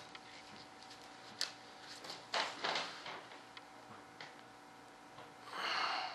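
Quiet bench handling noises from hand work on an epoxy wing layup: scattered light clicks and taps, with a few brief scraping sounds, the loudest near the end.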